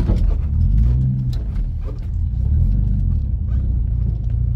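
Car engine and road rumble heard from inside a moving car, the engine note rising and falling a few times as it changes speed.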